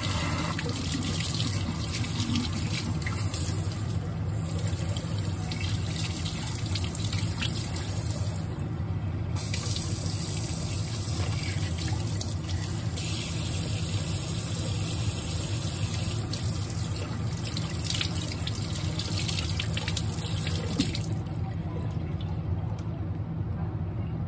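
Tap water running in a stream from a Philips on-tap water purifier and splashing over hands being rinsed under it. The splashing hiss thins out near the end.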